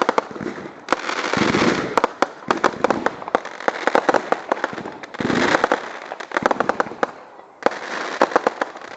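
Consumer aerial fireworks going off in rapid succession during a show's finale: hissing rushes alternate with fast strings of sharp bangs and cracks.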